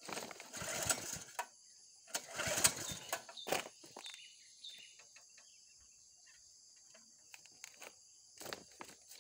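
Small petrol engine on a feed chopper being pull-started twice. Each pull of the recoil cord turns it over for about a second, and the engine does not catch.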